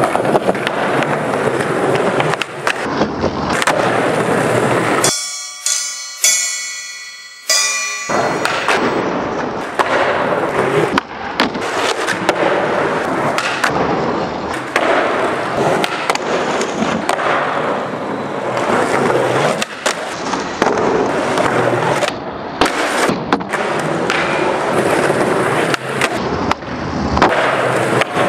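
Skateboard wheels rolling on concrete, with repeated sharp pops, truck grinds along a ledge and landing knocks as frontside smith grinds are tried over and over. A short pitched passage breaks in about five to eight seconds in.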